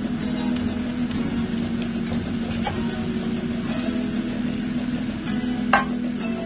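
Meatballs and chopped onion sizzling in oil in a stainless steel frying pan while being stirred with a wooden spoon, over a steady low hum. A few sharp knocks of the spoon against the pan, the loudest near the end.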